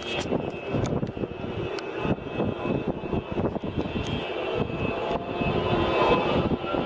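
Many car horns sounding together over the steady rumble of city traffic, the horn notes held and overlapping.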